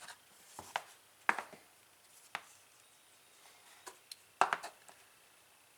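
A handful of sharp clicks and taps from the drill's parts being handled during reassembly, about five in all, with the loudest about a second in and again a little past four seconds.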